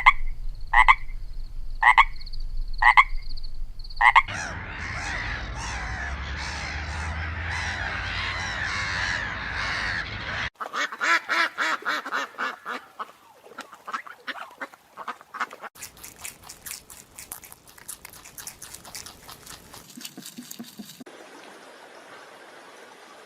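Frogs calling, in several spliced clips. First come about five loud croaks roughly a second apart, then a dense chorus. After a sudden cut about ten seconds in there are rapid pulsed calls and clicking, fading to a faint hiss near the end.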